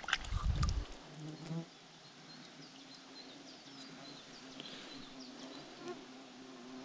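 A fly-like insect buzzing close to the microphone at a steady low pitch that wavers slightly. There is a brief low rumble in the first second.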